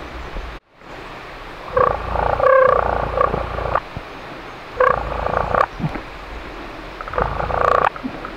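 Wild turkey gobbling three times, each a loud rapid rattling call of about a second.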